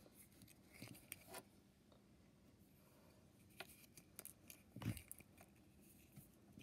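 Faint clicks and scratches of fingers prying open a small plastic Hatchimals toy egg, with one louder knock about five seconds in.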